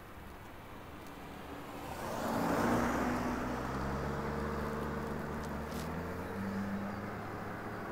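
A car driving past on the road. Its tyre and engine noise swells to a peak about three seconds in, then a steady engine hum carries on as it drives away.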